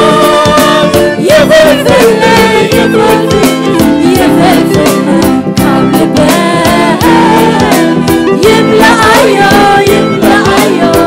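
Gospel choir and a woman lead singer singing a worship song over electronic keyboard with a steady beat.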